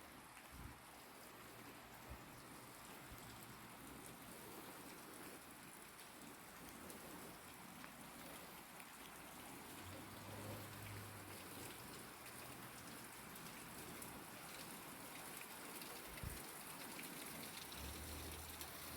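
Faint, steady rush of running water in a rocky gorge, growing slightly louder, with a few soft footfalls on the trail.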